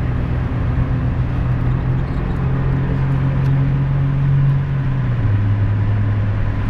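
Volkswagen Golf engine heard from inside the cabin while driving, a steady drone with road noise. The pitch climbs slowly as the car accelerates, then steps down in one drop about five seconds in, at an upshift.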